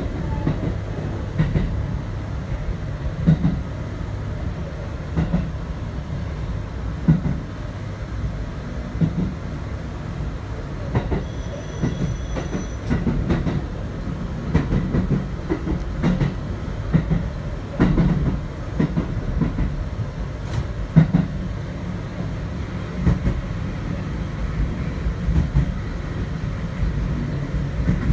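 JR Hokkaido 721-series electric train running on the line, heard from inside the car: a steady low rumble and hum, with wheel knocks over the rail joints every second or two. A brief high tone sounds for about a second and a half, about eleven seconds in.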